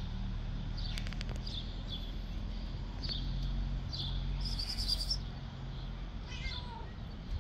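Small birds chirping repeatedly, short high chirps about once or twice a second, over a low steady rumble.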